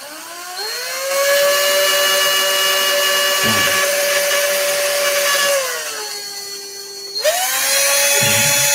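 Cordless drill running as it bores a small hole in a piece of wood, with a high motor whine. It winds up over the first second and holds steady, eases off to a lower pitch about six seconds in, then speeds up again near the end.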